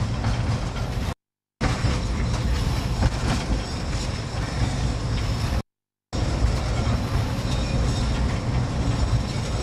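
Tram running along its track, heard on board at the front: a steady low rumble of wheels on rail with a few faint knocks. The sound cuts out completely twice for about half a second.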